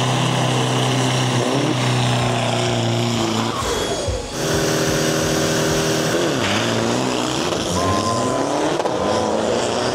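Isuzu D-Max turbo-diesel drag trucks running at high, steady revs on the start line, then launching down the strip about six seconds in, the engine pitch rising and falling as they accelerate and shift.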